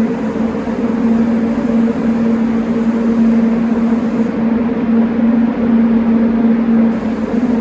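Paint spray booth running: a steady, loud motor hum under a constant rush of air.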